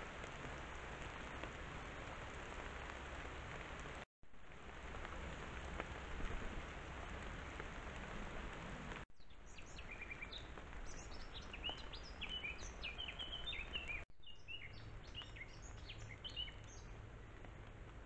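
Steady background hiss on a trail camera's microphone, cut off briefly three times where recordings are joined. From about halfway a songbird sings quick, high, varied phrases of short chirps.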